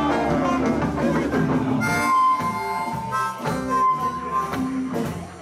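Live blues band with a harmonica played into a hand-cupped microphone, blowing long held and bent notes over electric guitar and the rest of the band.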